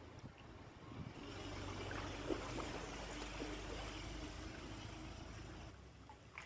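Shallow pond water swishing and trickling as a cast net is drawn in through it, with a faint steady low hum underneath. The water noise drops away near the end as the net reaches the hands.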